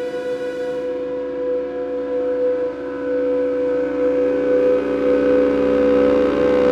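Lyra-8 synthesizer drone playing a microtonal scale, run through modular synth processing: a bed of steady, layered sustained tones. It swells louder and fuller about four seconds in.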